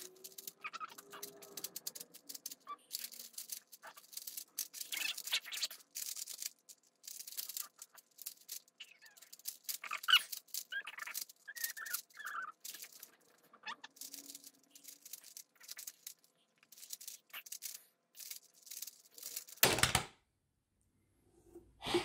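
A 3x3 Rubik's cube being turned fast by hand in a timed solve: quick, uneven plastic clicking and rattling as its layers are twisted. A single loud thump comes near the end as the solve stops.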